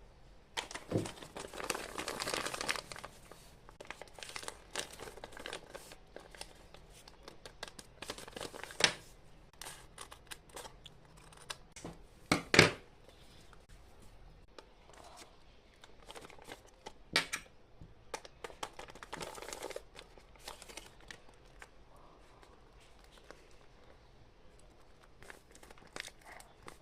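A blind bag's wrapping being torn open and crinkled by hand, in irregular bursts of rustling with a few sharp clicks, the loudest about halfway through.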